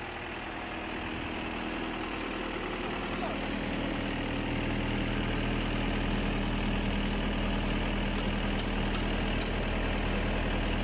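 A pile driver's engine running steadily, growing louder over the first few seconds and then holding at an even level.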